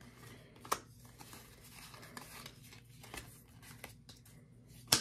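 Pokémon trading cards handled and slid from hand to hand: faint card rustling with a few light clicks, the sharpest just before the end.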